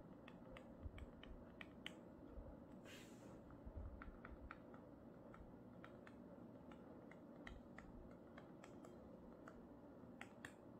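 Faint marker-pen writing on a white board: scattered light taps and clicks as the letters are written, with a brief scratchy hiss of a stroke about three seconds in.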